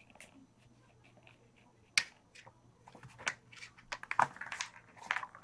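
Scattered light clicks and taps, the sharpest about two seconds in and a quicker run of them near the end, with soft rustling in between.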